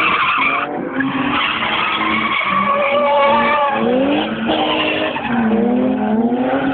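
Car engines revving up and down in rising and falling pitch, with tyres skidding and squealing as the cars slide sideways through a drift.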